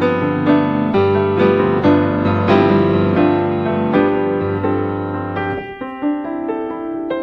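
Background music: a gentle piano melody, notes struck about twice a second over a held bass line that drops out about five and a half seconds in, leaving only the higher notes.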